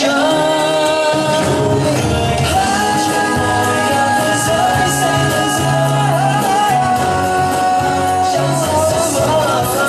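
Vietnamese song playing: a sung melody with long held notes over a bass line.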